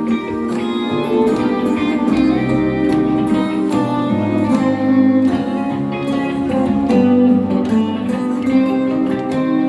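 Live guitar instrumental: a guitar plays a line of plucked notes over sustained lower notes.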